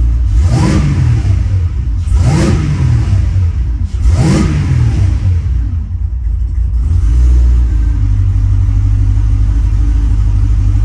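Supercharged LSA V8 in a 1950 Chevrolet Deluxe, idling and given three quick blips of the throttle about two seconds apart in the first half, then settling back to a steady idle.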